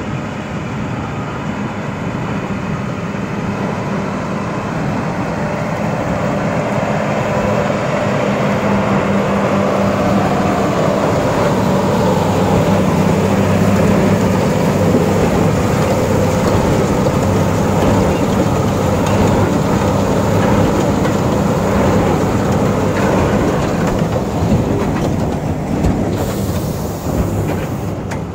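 A John Deere tractor engine running under load as it pulls a Krone Big Pack 1290 HDP XC large square baler, with the baler's steady mechanical clatter over the engine's drone.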